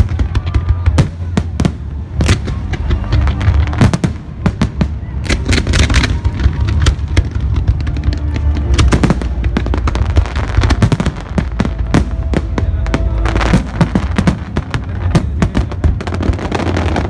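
Aerial fireworks display: a dense, continuous run of sharp bangs and crackles from bursting shells.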